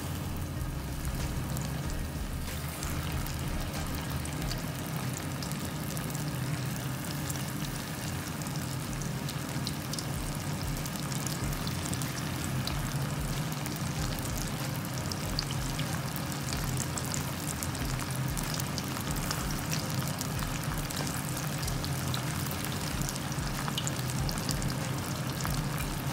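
Breadcrumb-coated chicken pieces deep-frying in hot oil in a metal pan: a steady sizzle with fine crackling that gets busier later on, over a low steady hum.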